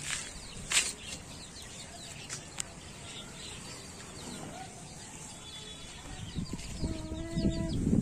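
Domestic hens clucking softly as they feed, with a few short clicks, and one steady, held hen call near the end.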